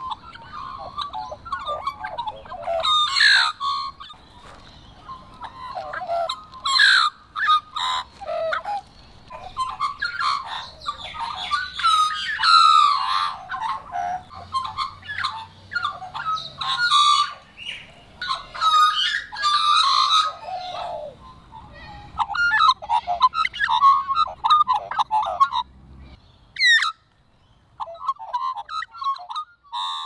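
Australian magpies singing, carolling and warbling. A run of rich notes that glide up and down, with a short pause and then one fast sweeping note about 26 seconds in.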